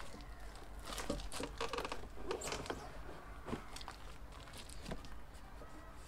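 Packaging being handled and pulled apart during unboxing: irregular rustling and crinkling with a few sharp knocks, busiest about one to three seconds in and thinning out after.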